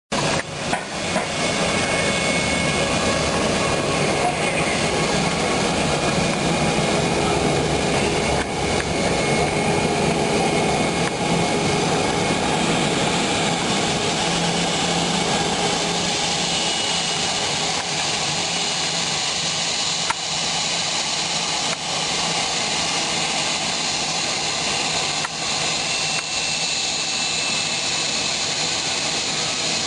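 Airbus A319 jet engines running at taxi power as the airliner taxis in: a steady rushing noise with a faint high whine, easing a little in the second half.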